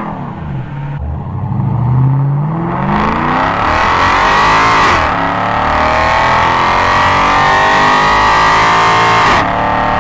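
2002 Chevrolet Camaro SS's LS1 5.7-litre V8 running hard and loud: the revs fall at first, climb, dip briefly about five seconds in, then hold high for several seconds before dropping near the end.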